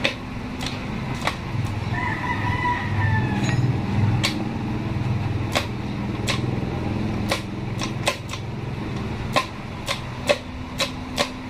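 A rooster crows once, about two seconds in, a falling call lasting a second and a half. Throughout, sharp metallic clicks and clinks come from manual-transmission gears and shaft parts being handled and seated in the gearbox case, more often in the second half.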